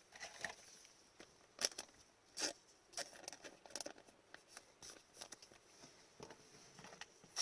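Faint rustling and light clicks of trading cards being handled and flipped through, with two sharper snaps about one and a half and two and a half seconds in.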